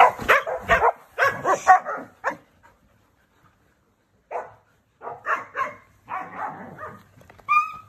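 Standard poodles barking in a quick run of short barks, falling quiet for about two seconds, then barking again, with a short high rising whine near the end.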